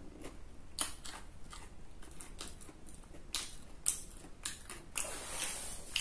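Close-up eating sounds: food being bitten and chewed, a string of sharp, irregular crunches that get louder in the second half.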